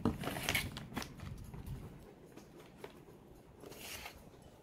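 Light rustling and small clicks of plastic-wrapped dog toys and treat bags being handled on a wooden table, busiest in the first two seconds, then quieter.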